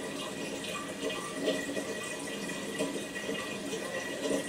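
Aquarium water trickling and lapping steadily as hands in the tank shift a driftwood root.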